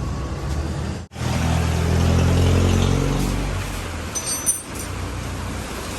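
A motor vehicle's engine running close by, swelling about two seconds in and fading away after that, like a vehicle going past.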